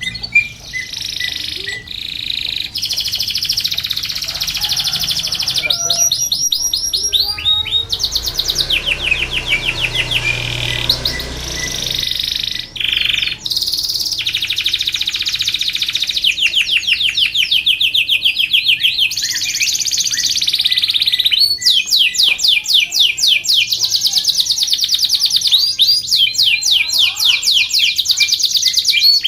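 Domestic canary singing long, continuous song: rapid high-pitched trills and rolls, phrase after phrase with hardly a pause.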